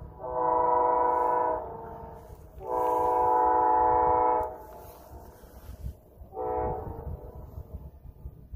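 Air horn of an approaching Amtrak GE P42DC locomotive sounding three blasts of several tones at once: one of about a second at the start, a longer one of nearly two seconds, then a short one near the end, with a low rumble beneath. This long, long, short sequence fits the opening of the standard grade-crossing warning signal.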